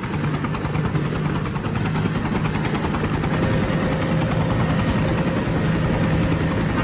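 Helicopter engine and rotor running steadily, heard from inside the cockpit. It starts suddenly and holds a low, even hum.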